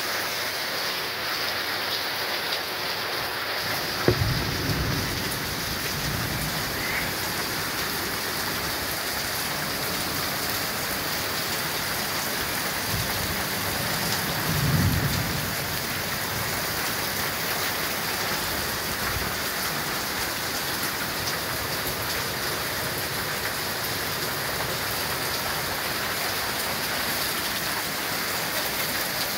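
Heavy rain pouring steadily onto a street in a thunderstorm. A sharp crack of thunder comes about four seconds in, followed by a low rumble, and a second deep rumble of thunder swells around fifteen seconds.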